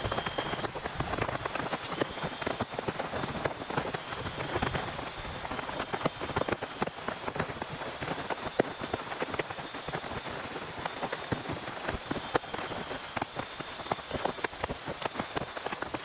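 Heavy rain falling on a tent, a steady dense hiss of rain thick with sharp individual drop hits.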